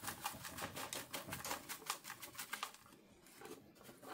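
Dry mealworm bedding and grain substrate pouring out of a plastic 3D-printed bin into a mesh sifter: a faint, dense patter of small ticks that thins out after about three seconds.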